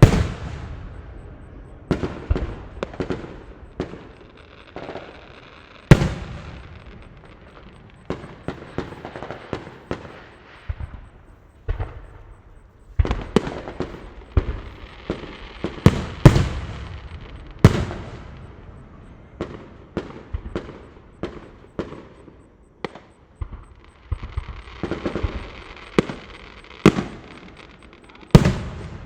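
Fireworks sound effect: an irregular string of bangs from bursting shells, some much louder than others, each fading away, with crackling in between.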